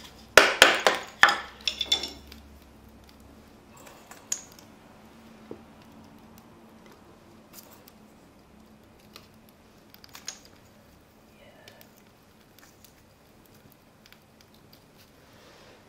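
A quick run of sharp knocks and clatters from a knife working dry kindling wood, about half a second to two seconds in, then only a few faint clicks as sticks are laid on an open fire.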